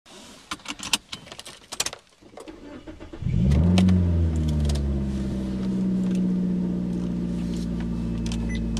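A car engine starts about three seconds in, flaring up briefly and then settling into a steady idle. Before it, a run of light clicks and rattles.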